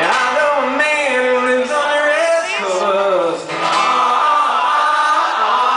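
A man singing a simple wordless sing-along melody in long, bending held notes, with a short break between phrases about three and a half seconds in.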